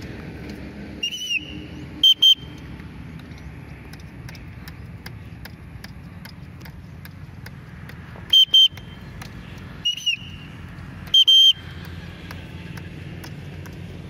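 Several short, shrill whistle blasts, some coming in quick pairs, over a low steady background rumble.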